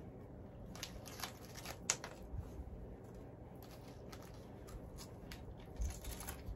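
Small plastic snack wrappers being handled and opened: a few short crinkles, with one sharp snap about two seconds in.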